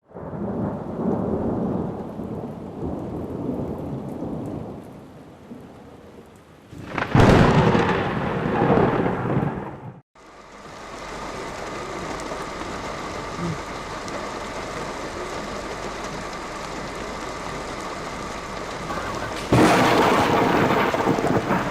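Thunderstorm: thunder rumbling, with a loud thunderclap about seven seconds in. After a sudden cut comes steady rain, which turns abruptly louder and heavier near the end.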